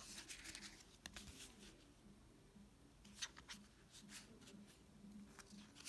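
Near silence, with a few faint, short rustles and clicks of trading cards being handled.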